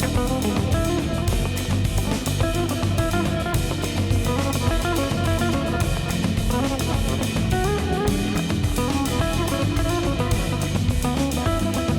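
Background music: a band track with guitar and a steady drum-kit beat.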